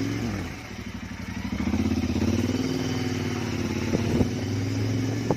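Royal Enfield GT650's 648 cc parallel-twin engine running through an aftermarket Gursewak short exhaust while riding. The engine note drops off about half a second in as the throttle closes, then picks up again a second or so later, with a couple of sharp clicks about four seconds in.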